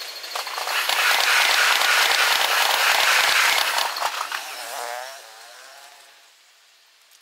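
Sped-up sound of a JR 185-series electric train passing close by: a loud rush of wheel and rail noise swells within the first second and holds for about three seconds. It then fades with a warbling tone and is nearly gone a little after five seconds.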